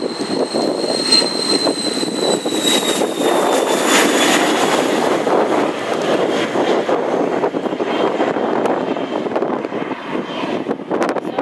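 Cessna Citation business jet's twin turbofan engines at takeoff power as it rolls past and lifts off: a high whine that drops in pitch around two to four seconds in, over a steady roar that carries on as the jet climbs away.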